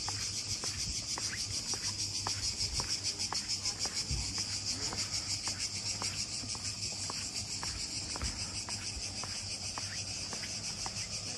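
Steady high-pitched insect chorus, a fast pulsing shrill that carries without a break.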